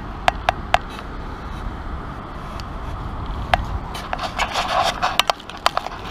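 Long-handled sand scoop working in wet beach sand: sharp clicks and crunching scrapes, a few in the first second, then a dense run of them in the last two seconds as the scoop digs into the hole.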